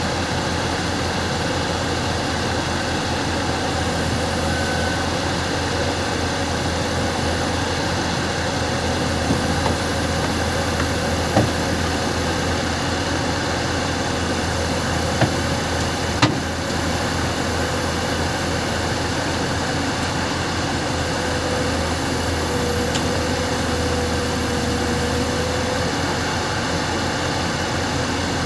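Heavy diesel engine of an excavator running steadily, with a handful of short sharp knocks midway through.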